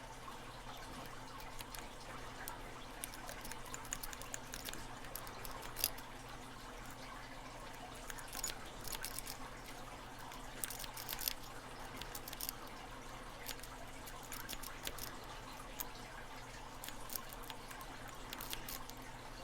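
Faint, irregular small metallic clicks and scratches of a snake rake working the pins inside a Master Lock 530 padlock's keyway, with tension held at the bottom of the keyway.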